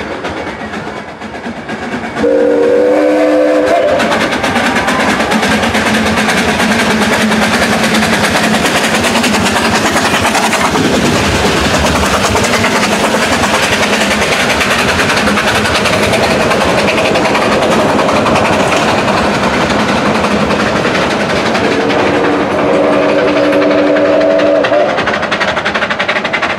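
A train running past with the steady noise and clatter of its wheels, sounding two chord-like blasts of its whistle, a short one near the start and a longer one near the end.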